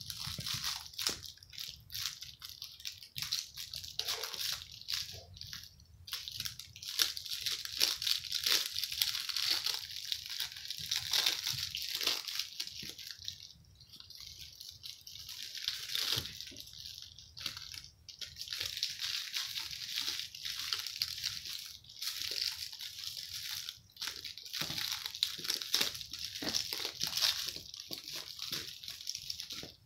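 Puppies chewing, mouthing and tugging at a plush toy while scuffling on fleece bedding: a steady rustling, chewing noise broken by many small clicks.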